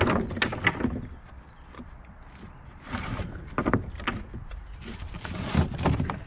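Rough-sawn pine boards being shifted on a stack: wooden knocks and scrapes in a few clusters, about half a second in, around three seconds in, and again around five to six seconds in.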